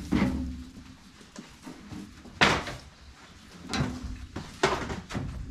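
A few separate knocks and scrapes of handling work, the loudest about two and a half seconds in, with quieter rustling between.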